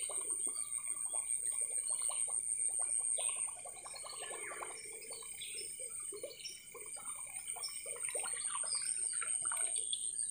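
Birds chirping over a steady high insect drone, with water splashing on the river surface as snakehead strike at the lure.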